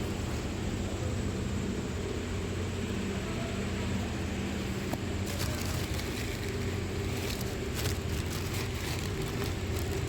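2014 Nissan Xterra's engine running with its air-conditioning compressor knocking: the compressor is failing.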